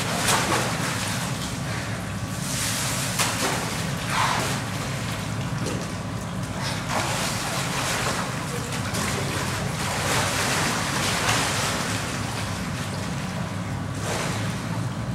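Pool water sloshing and splashing as an adult polar bear swims and rolls in a shallow enclosure pool, surging every few seconds over a steady low hum.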